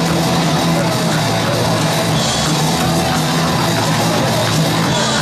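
Loud hard-rock music with electric guitar.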